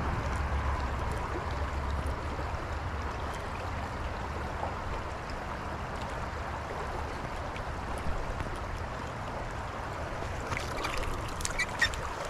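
Creek water running steadily, with a few light clicks and knocks near the end.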